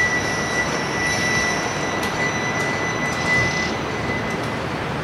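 Fire station's motorised sectional bay doors rolling down: a steady mechanical running noise with a high whine that fades out near the end.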